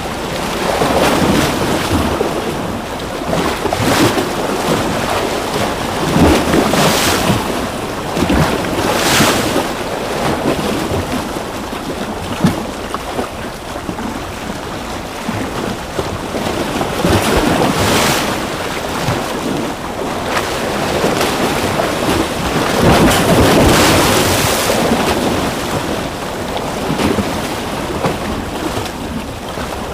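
Ocean waves breaking and washing on a shore: a steady rush of surf that swells and falls back every few seconds.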